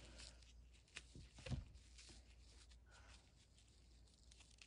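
Near silence with a few faint clicks and taps, about a second in and again half a second later, as small toy clothing and accessory pieces are handled on a table.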